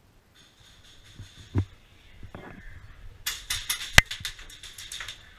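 Airsoft gun firing a burst of rapid, evenly spaced clicks for about two seconds, with one sharper crack partway through. A single thump comes about a second and a half in.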